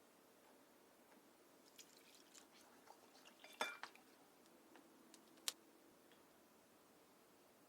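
Faint kitchen handling sounds: scattered small clicks and taps, a brief ringing clink about three and a half seconds in, and one sharp tap about two seconds later.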